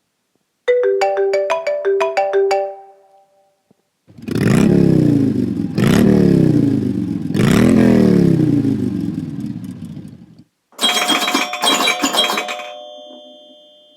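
Classic iPhone ringtones playing one after another: first a short tune of quick bell-like notes, then three long engine revs rising and falling like a motorcycle, then a doorbell chime ringing repeatedly near the end.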